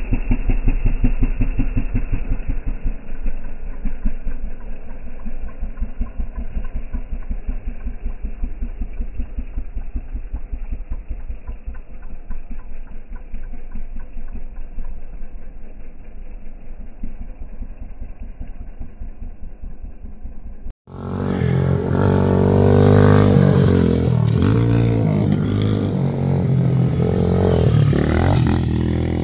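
Dirt bike engine running as the bike rides away, its muffled firing pulses slowly getting quieter. About two-thirds of the way in, after a sudden break, the engine is heard up close and much louder, revving as the bike rides over a small jump.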